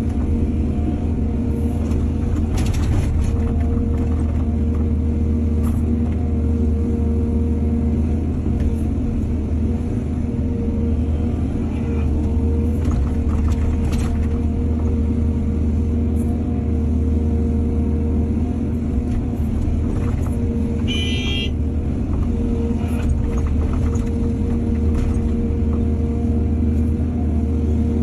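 Diesel excavator engine running steadily under load with a deep, even hum, with a few short clatters and a brief high-pitched squeal about two-thirds of the way in.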